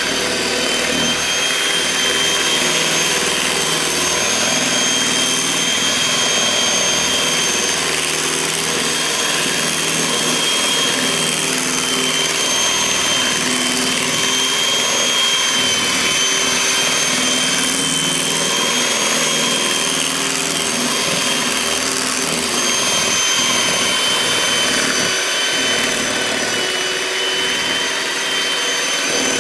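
Electric mixer running steadily, its motor giving a high, constant whine over a whirring noise.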